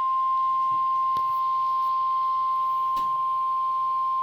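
NOAA Weather Radio 1050 Hz warning alarm tone: one steady, unbroken beep at a single pitch. It is the attention signal that sets off alert receivers ahead of a severe weather warning message.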